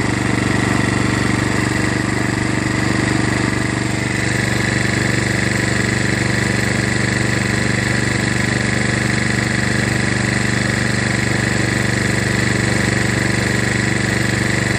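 Kohler Command 12.5 HP single-cylinder engine on a John Deere LA105 lawn tractor running steadily at a constant speed, with the charging system working off it.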